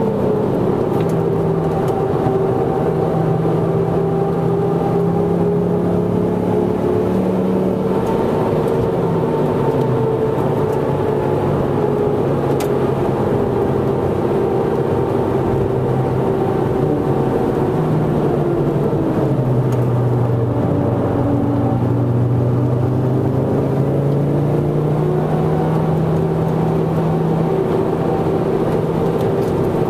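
A Ford Focus ST Mk2's turbocharged 2.5-litre five-cylinder engine heard from inside the cabin under track driving. The engine note drops near the start and again about a third of the way in, is lowest a little past the middle, then rises steadily under acceleration toward the end, over a constant road and wind noise.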